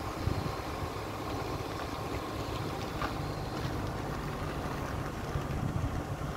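Vehicle driving along a road: a steady low rumble of engine and tyres, with wind buffeting the microphone.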